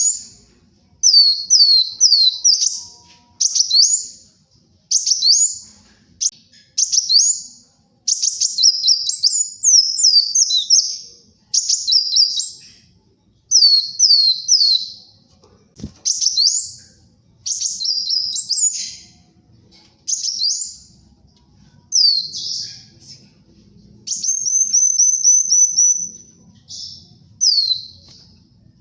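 Kolibri wulung sunbird singing energetically in quick phrases of high, sharp, downward-sweeping notes, each phrase about a second long with short pauses between. In the second half one phrase becomes a fast trill of rapidly repeated notes.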